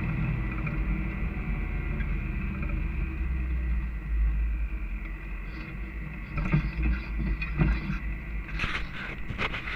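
Off-road vehicle driving slowly along a rough dirt trail, with a steady low engine and road drone. In the last few seconds there is a scatter of knocks and rattles as it rides over bumps.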